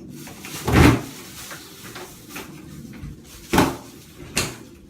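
Three thuds of a door being moved, the loudest about a second in and two more near the end.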